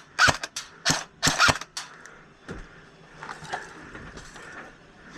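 Airsoft guns firing: about five sharp snaps in the first two seconds, then fainter scattered clicks.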